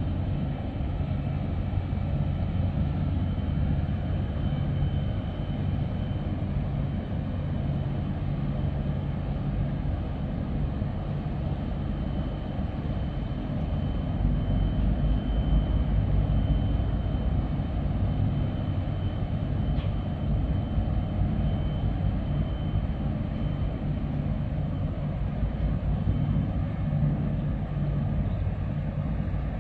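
Steady deep rumble and low hum of a large 8,600-TEU container ship's engines and machinery as it passes close by, swelling a little about halfway through, with a faint high whine over it.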